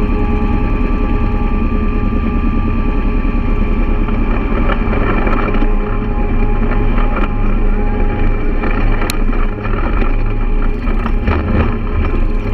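Quad bike (ATV) engine running at a steady low speed as it rolls down a rocky dirt trail, with occasional knocks and rattles and one sharp click about nine seconds in.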